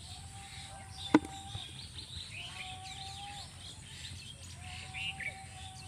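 Small birds chirping repeatedly, with one sharp click about a second in. A steady, level tone comes and goes three times, about a second each.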